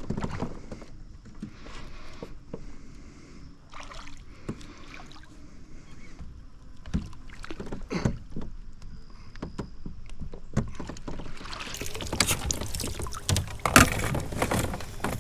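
Knocks and bumps on a plastic fishing kayak with light water slosh, turning in the last few seconds into a dense run of splashing and clatter as a hooked smallmouth bass is brought alongside and landed.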